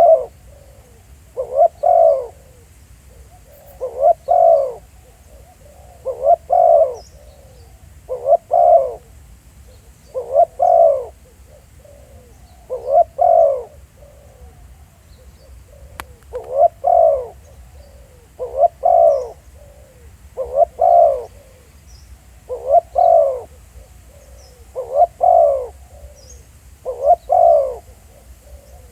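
Decoy spotted dove cooing: a short multi-note coo phrase repeated about every two seconds, with one longer pause about halfway through.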